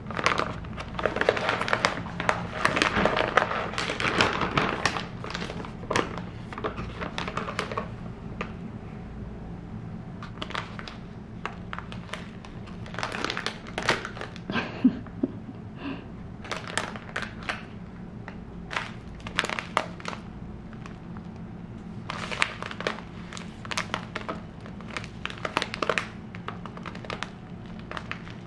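Plastic grain bags crinkling as hands pick them up and handle them, in irregular bursts of crackling with short pauses between.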